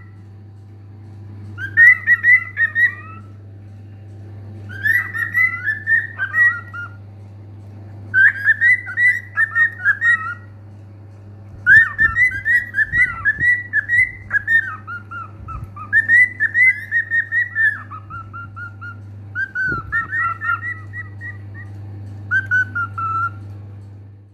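Cockatiel whistling a warbling song in about eight phrases of one to two seconds, with short pauses between, over a steady low hum.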